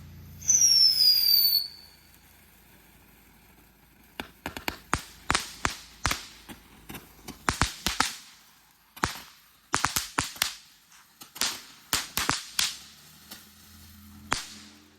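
Small consumer firework cake going off: a loud whistle falling in pitch for about a second near the start, then from about four seconds in a long irregular string of sharp cracks and pops, roughly two a second, until shortly before the end.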